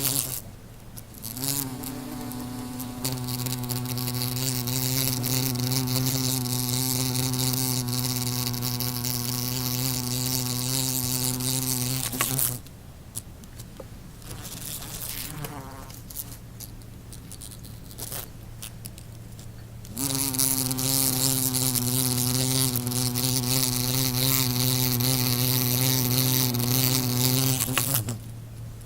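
A wasp's wings buzzing in flight: a steady, low-pitched buzz that lasts about ten seconds, stops for several seconds, then returns for about eight more seconds.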